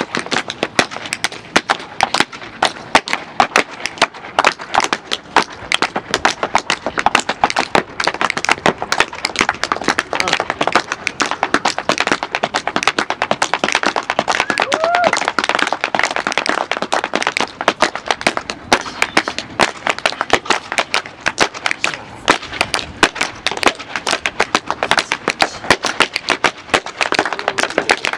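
Tap shoes striking portable wooden tap boards, with two dancers trading rhythms: a fast, dense stream of taps that never breaks.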